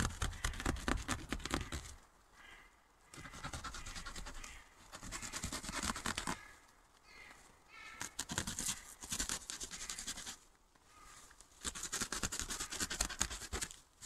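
Plastic cling film crackling and rustling as it is cut open with a knife and pulled apart by hand, in several short bursts with brief pauses between them.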